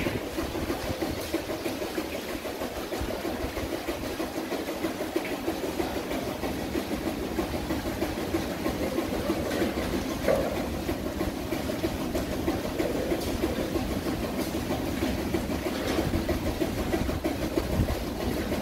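Steady rushing of flowing water over a shallow rocky bed, with a low rumble underneath.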